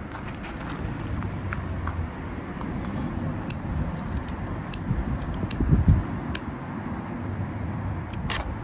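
Small wood fire in a micro stove crackling, with scattered sharp pops, over a steady low rumble that swells briefly about six seconds in.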